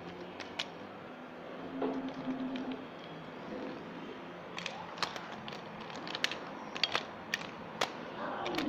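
Hot Wheels toy monster trucks pushed by hand across a tile floor: plastic wheels rolling with a run of sharp plastic clicks and clacks, most of them in the second half.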